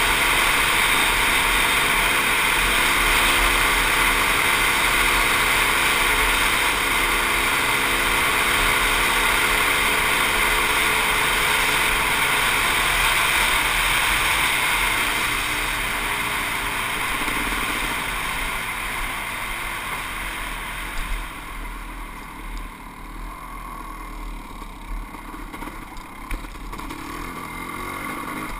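Kawasaki KX500 500cc two-stroke single-cylinder dirt bike engine running steadily under way, heard from the rider's helmet along with wind. About two-thirds of the way through the engine note eases off and gets quieter, with a few brief knocks.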